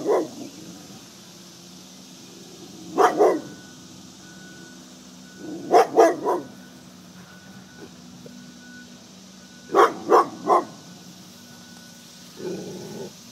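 Chocolate Labrador Retriever barking at a crab pot buoy, short sharp barks in groups of two or three every three to four seconds, with a softer, lower sound near the end.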